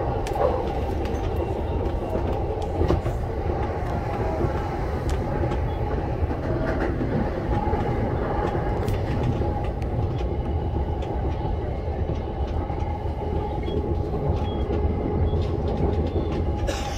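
Yamanote Line commuter train running, heard from inside the front car: a steady rumble of wheels on the rails with a constant hum. A few short clicks from the track are scattered through.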